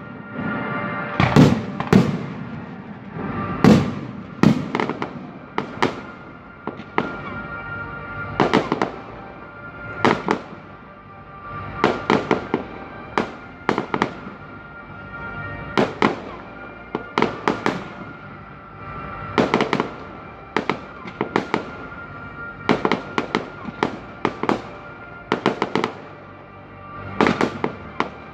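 Aerial firework shells bursting, sharp bangs coming every second or two, often several in quick succession, with music playing underneath.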